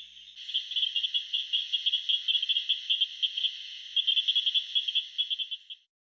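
Southern cricket frogs calling: a fast run of high, sharp clicks, dense and overlapping, with a faint steady high hum behind them. The clicking stops abruptly near the end.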